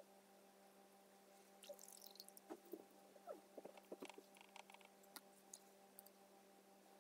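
Near silence over a steady low electrical hum, with a scatter of faint light clicks and small scratchy handling noises from about two to six seconds in.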